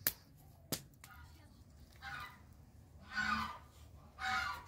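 Domestic fowl calling: three short, nasal calls about a second apart. They are preceded by two sharp knocks in the first second.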